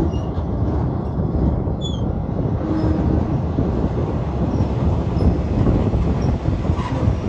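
Passenger train running over a river bridge: a steady, loud rumble of wheels and carriages, with a few faint short high squeaks about two seconds in.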